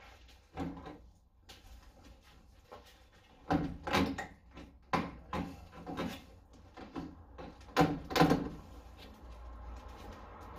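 Irregular metallic clunks and knocks from the half-detached front wing of a Mk2 Ford Escort as it is pulled and worked by hand, several of them sharp with a short ring; the wing is still held on by its rusty bottom corner.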